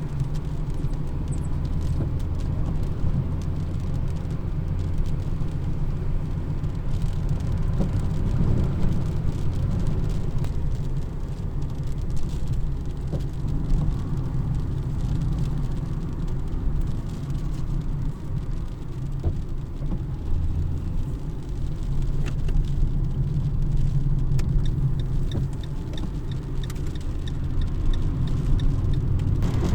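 Steady low rumble of a car on the road, even throughout with no breaks.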